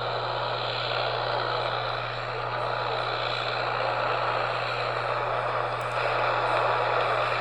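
AM radio static: a steady hiss from the receiver, with a low steady hum underneath and a faint crackle.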